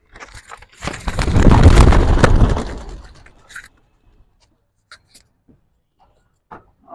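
A flock of racing pigeons bursting out of a release basket: a loud flurry of wingbeats about a second in that dies away within two seconds, followed by a few faint clicks.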